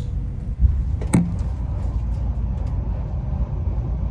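Moving passenger train heard from inside the carriage: a steady low rumble of running gear, with a sharp click about a second in.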